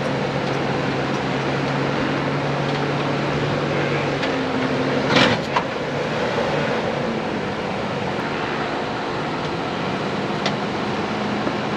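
Nissan Xterra's V6 engine running under load as it crawls over boulders, its note shifting about four seconds in. A single sudden loud bang comes about five seconds in.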